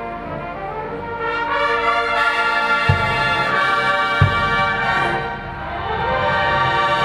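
Marching brass hornline of bell-front horns playing sustained chords in warm-up, swelling louder about a second in. Two short low thumps sound partway through.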